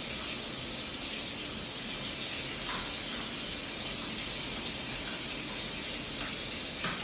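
A steady hiss runs throughout, with a couple of faint light taps.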